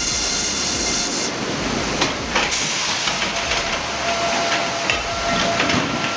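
Steam-powered sawmill log carriage and headrig bandsaw at work: a steady, loud mechanical noise with steam hiss and a few sharp clanks about two seconds in. A thin steady tone joins at about three seconds.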